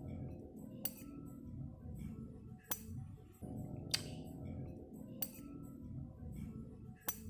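A metal spoon clinking against a bowl of bakso five times at uneven intervals, over quiet background music.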